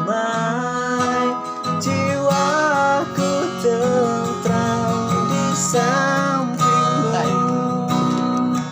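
Music: strummed acoustic guitar with a wavering melody line gliding over the chords, closing out a song.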